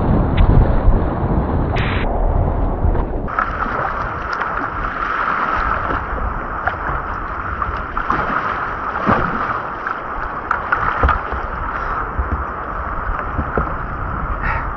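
Whitewater rushing and splashing around a kayak, a continuous roar of moving river water with scattered sharper splashes.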